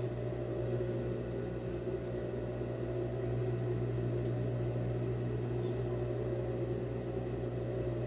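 Steady low electric hum of a running appliance or motor, with a few faint ticks as fabric and pins are handled.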